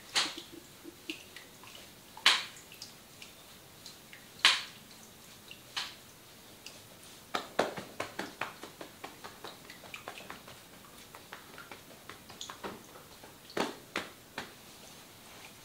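Hands working oiled skin and hair in a head and face massage, making scattered sharp wet smacks and clicks, with quick runs of small clicks around the middle and near the end.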